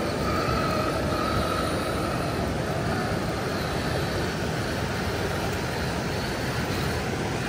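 Steady rush of river rapids tumbling over rocks, with the high whine of the Axial SCX6 Honcho RC truck's electric motor and gears, strongest in the first couple of seconds and then fading under the water.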